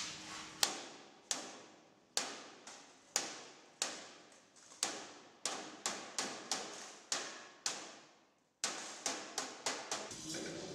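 Ball-peen hammer striking the folded edge of a galvanized sheet-steel stove box: a steady series of sharp metallic blows, each with a short ring, about one a second. They pause briefly about eight seconds in, then come quicker.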